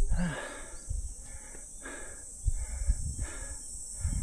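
Outdoor mountain-top ambience: a bird calling about four times, one call every second or so, over a steady high insect drone, with some low wind rumble on the microphone.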